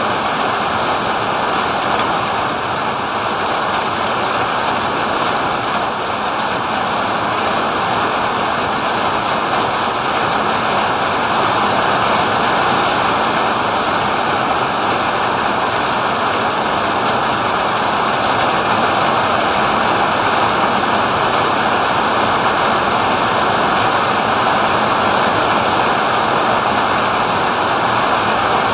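Rain falling steadily in a thunderstorm: a loud, dense, even hiss with no thunderclaps.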